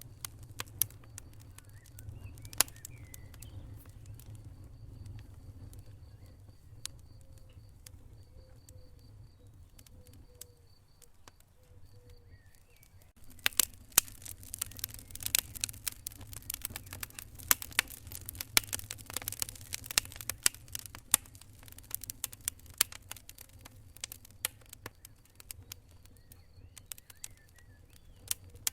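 Wood fire crackling in a fireplace: sharp pops and snaps over a steady low rumble of the flames, scattered at first and then coming thick and fast from about halfway through before thinning again near the end.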